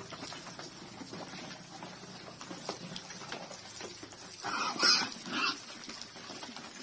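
A herd of village pigs eating wet mash from a trough, with steady smacking and slurping. About four and a half seconds in, one pig gives a few short, loud squeals.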